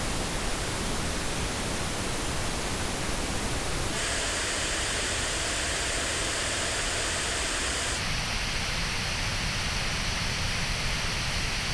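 Pink noise test signal, averaging about −24 dBFS, played through studio headphones and picked up by an artificial-ear simulator. Its tone changes abruptly about four seconds in and again about eight seconds in, the later sections with uneven peaks and dips in the treble.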